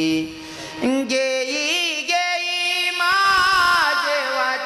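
Devotional kirtan singing: a solo voice holds long, wavering notes that step upward in pitch, the drawn-out opening of a Marathi abhang to Vitthal.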